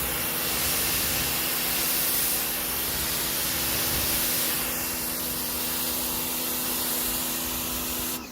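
Electric pressure washer spraying: a steady hiss of the high-pressure water jet with the pump motor's hum beneath it, stopping suddenly near the end.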